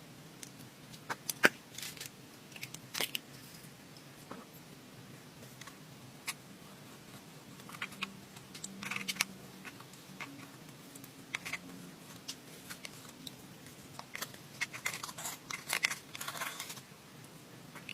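Hands working slime, with scattered sticky clicks, pops and short crackling bursts, busiest near the end.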